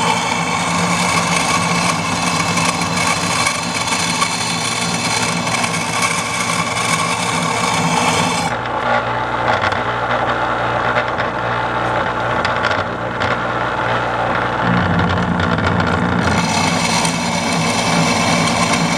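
Electric grinder running while a steel mower blade is ground to sharpen it: a steady motor hum under a rasping grind. The high hiss of the grinding thins out for several seconds in the middle, then comes back.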